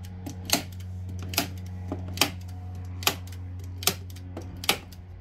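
Handheld manual staple gun firing staples through leather into a wooden subwoofer box: six sharp snaps, about one every 0.8 seconds, over a steady low hum.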